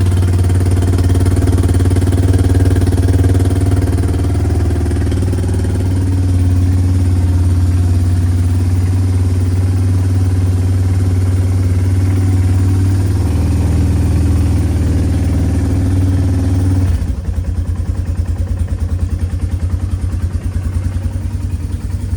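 Yamaha Bear Tracker ATV's single-cylinder four-stroke engine idling on a cold start, a steady low hum. About three-quarters of the way through, the note drops suddenly to a quieter, uneven pulsing idle.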